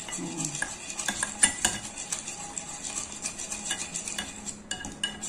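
Wire whisk beating a thick flour-and-egg batter in a glass bowl: a fast, uneven run of clinks and scrapes as the wires strike the glass, whisking out the lumps until the batter is smooth.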